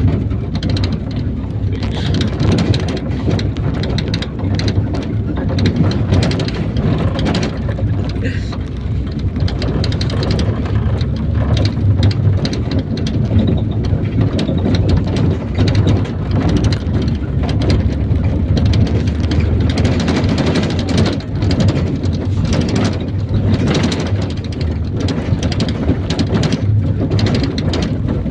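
Inside a moving IVECO Daily 50-140 minibus: a steady low rumble of engine and road noise, with constant rattling and knocking from the body.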